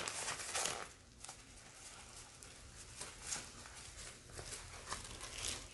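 Packaging being handled: soft, scattered rustles and light taps as an item in a bag is unwrapped.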